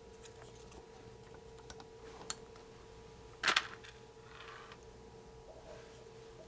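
Small clicks and taps of soldering tools on a circuit board during hand soldering, with one louder sharp tap about three and a half seconds in, over a steady faint hum.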